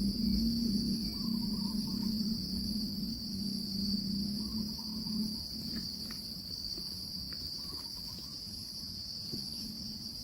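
Insects calling in a steady, unbroken high-pitched chorus, with a low hum underneath that fades out about halfway through.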